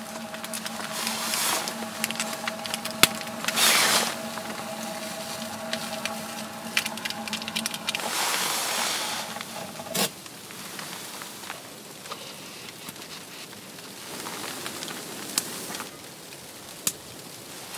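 Small wood stove fire crackling, mixed with rustling of a jacket and light knocks of gear being handled. A faint steady hum stops with a knock about ten seconds in.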